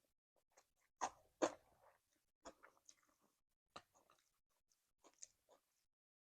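Close-up eating sounds: a person biting and chewing crunchy food, a string of short, sharp crunches with quieter chewing between them.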